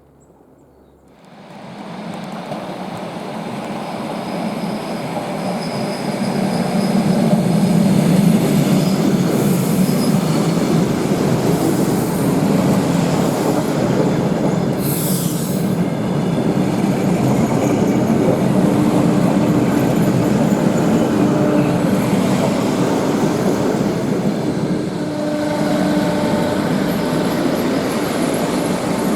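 Electric train rolling along the platform: a steady rumble of wheels on rail that builds over the first few seconds and then holds. Thin wheel squeals run through it, with a few short sharp squeals about midway.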